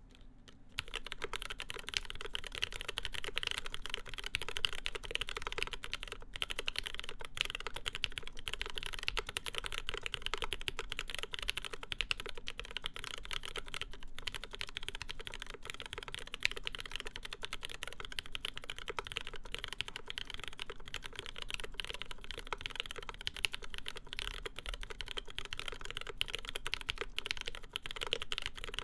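Continuous fast typing on a mechanical keyboard with lubed linear MX Black switches fitted with UHMWPE stems in an aluminium full plate, under GMK keycaps: a dense, steady stream of key clacks starting about a second in.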